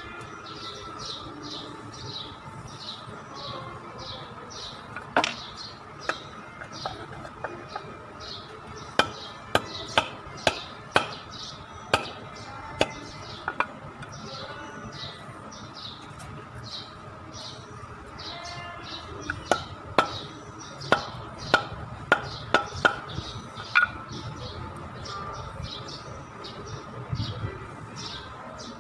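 A bird chirping over and over, about three chirps a second, with sharp taps and knocks in two runs that are louder than the chirping.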